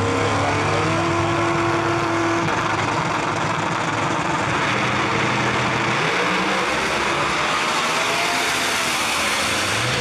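Two no-prep drag race cars, one of them a Ford Probe, running loud on the start line, then launching at full throttle about six seconds in. Their engine pitch rises and then falls as they pull away down the track.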